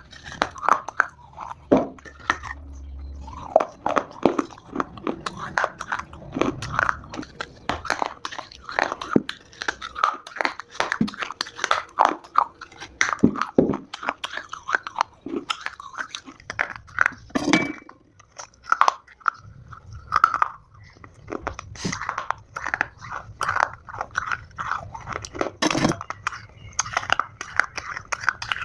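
Close-up chewing and biting of dry Multani mitti (fuller's earth clay): a continuous run of crisp, irregular crunches and crackles, with a brief lull midway.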